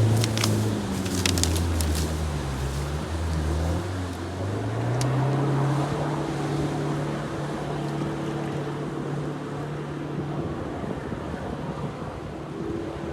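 An off-road 4x4's engine running as the vehicle drives over rough ground, its note dipping and then rising about four seconds in and holding steady, over a rushing hiss. A few sharp clicks and knocks come in the first two seconds and once more about five seconds in.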